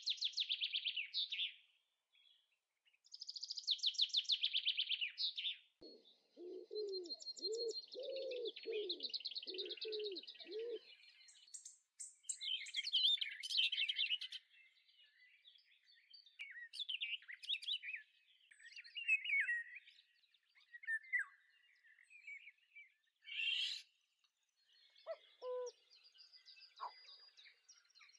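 Small birds chirping and trilling, several calls overlapping, with a run of about eight low, repeated notes near the middle.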